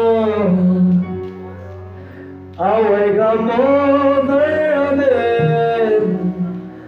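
Worship singing by a man's voice in long, drawn-out phrases over a steady low accompaniment. A held note breaks off about a second in, and a new loud phrase starts a little later and fades away near the end.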